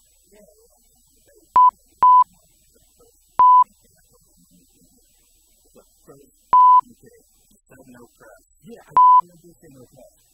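Five short, loud beeps of one steady pitch, the standard censor bleep, spaced irregularly, the fourth a little longer, over faint, low voices; a thin high whine runs underneath.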